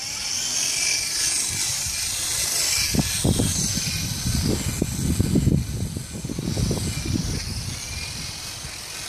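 Small electric R/C model helicopter in flight, its motor and rotor blades giving a steady high whine and buzz. Gusts of wind rumble on the microphone for a few seconds in the middle.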